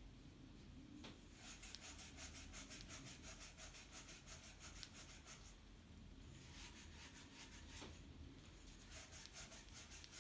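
Steel wool pad scrubbed back and forth on a 15 mm copper pipe, a faint scratchy rubbing in quick even strokes that come in three spells with short breaks: the copper is being cleaned to bare shiny metal so the lead-free solder will take.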